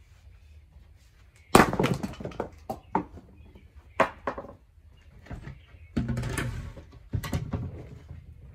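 Firewood being split by hand: sharp wooden strikes of a splitting tool on hardwood rounds, the loudest about a second and a half in, followed later by longer knocking clatter of split pieces and logs being handled.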